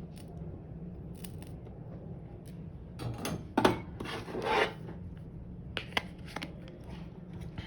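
Small phone parts and tools handled on a workbench while a phone is being put back together: scattered light clicks and a brief scraping rub about three to five seconds in, over a steady low hum.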